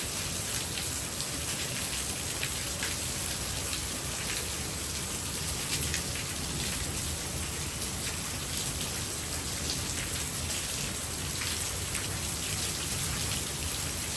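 Heavy rain pouring steadily, a continuous hiss of rain with scattered drops ticking.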